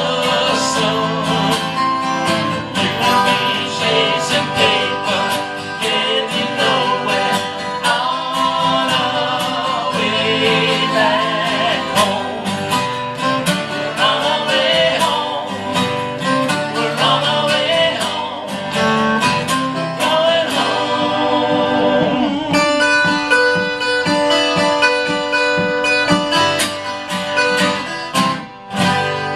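Live acoustic guitar music with singing, in a country or bluegrass style. The voice drops out about two-thirds of the way through and the guitar strums on alone.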